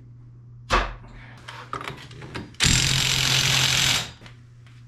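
A sharp knock, then a power tool runs in one loud, steady burst of about a second and a half while the wrongly fitted front wheel bearing is being taken out of the spindle.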